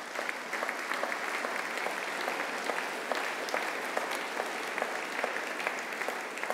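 A large seated audience applauding steadily, many hands clapping at once, easing off slightly near the end.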